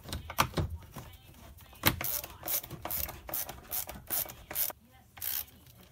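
Screwdriver turning a screw into the metal housing of a centrifugal casting machine: a sharp knock about two seconds in, then a run of short scraping strokes, about two to three a second.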